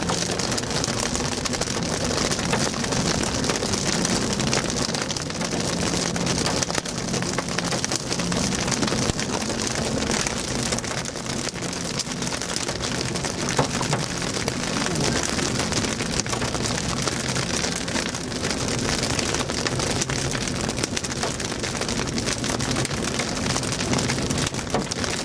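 Heavy rain and hail pelting the car's roof and windshield in a dense, steady patter of countless small hits, heard from inside the car. The car's engine hums low and steady underneath.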